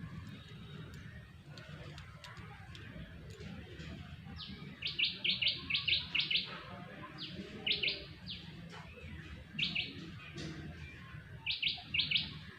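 A bird chirping in quick runs of short, sharp, falling notes, four runs about two seconds apart, over a steady low hum.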